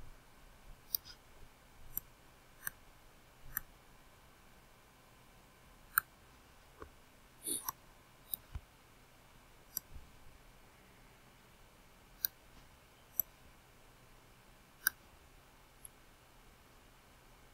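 Computer mouse clicking, single sharp clicks at irregular intervals, about a dozen over the stretch, over a faint steady room tone.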